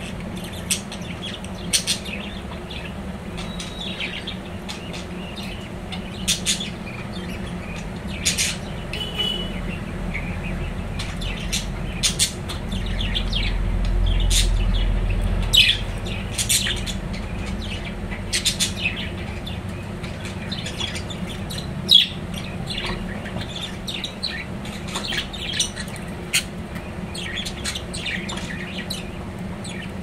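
Budgerigars chirping in short, sharp, scattered calls over a steady low hum, with a low rumble swelling briefly in the middle.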